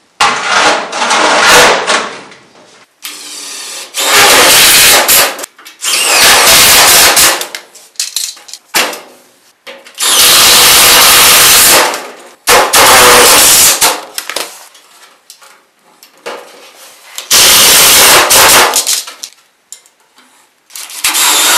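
Cordless drill with a nut-runner extension driving sheet-metal screws into the flanges of a return-air drop, in about half a dozen short loud bursts with gaps between them; the work is fast-forwarded, so the sound is sped up.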